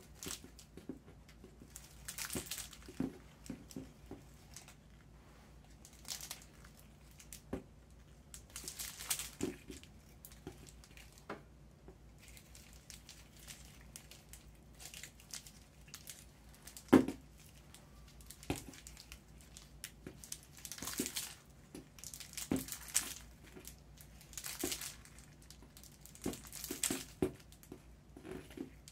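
A Jacob's ladder made of foil-wrapped square chocolates joined by short ribbons, tipped again and again so the blocks flop down over one another: repeated wrapper crinkling with light clacks, the loudest knock about seventeen seconds in.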